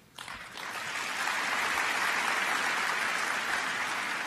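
Large audience applauding, rising within the first second and then holding steady.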